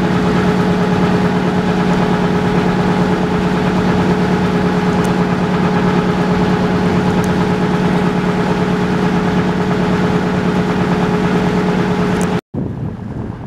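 Motor launch's engine running at a steady speed, a constant low hum with no change in pitch; it cuts off suddenly near the end.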